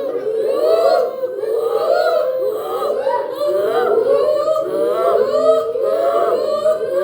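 A group of children imitating monkey calls together, many overlapping high, arching whoops and chatters.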